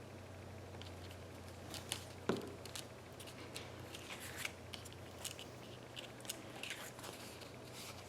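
Scissors snipping paper in a run of short, irregular cuts starting about two seconds in, with one sharper click among them. A low steady hum runs underneath.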